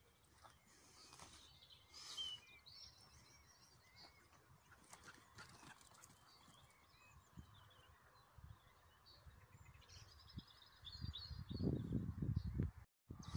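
Footsteps over rough ploughed soil, getting heavier and louder near the end, with faint birdsong chirping throughout.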